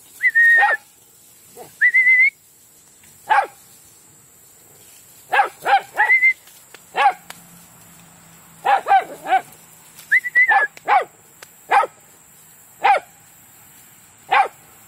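Silken Windhounds barking during play: about a dozen short, separate barks spaced irregularly through the stretch, a few ending in a high, briefly held yelp.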